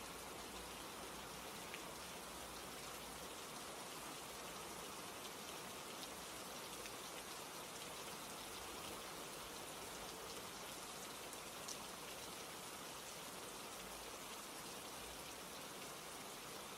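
Steady rain falling, an even hiss throughout, with a couple of faint ticks.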